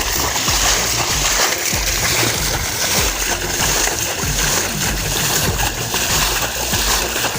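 Irregular splashing and sloshing of shallow, muddy wetland water being bailed out by hand to get at the fish.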